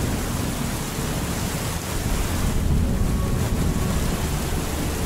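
Steady heavy rain with a low thunder rumble that swells about two seconds in.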